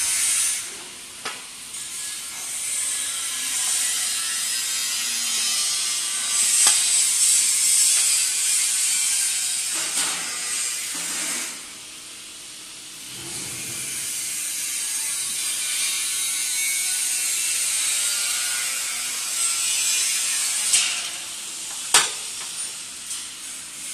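Continuous ratcheting mechanical clicking from a hand tool, as bolts are fastened on the steel frame of a roller heat press. A few sharp metal clicks stand out, the loudest near the end.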